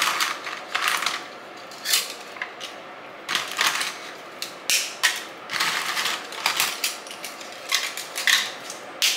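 Dry lasagna noodles being snapped by hand into a pot: irregular clusters of sharp cracking snaps with short pauses between them.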